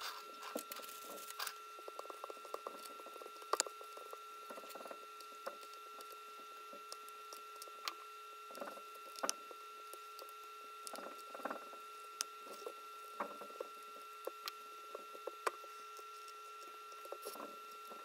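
Faint scattered clicks, taps and crinkles of plastic film as hands and a slim metal tool press wet paint protection film into the edges of a plastic shifter trim piece. A faint steady hum runs underneath.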